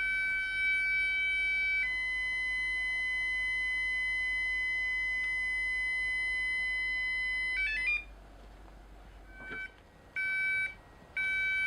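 Texecom Premier Elite alarm keypad sounding a steady electronic tone after part-arming, typical of the exit-delay tone. The tone shifts pitch about two seconds in and stops abruptly at about eight seconds. Near the end come short single beeps, about one a second.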